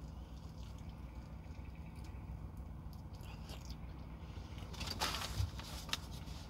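Mouth sounds of eating crispy breaded fried chicken: biting and chewing, with small clicks and a louder crackly crunch about five seconds in, over a steady low hum.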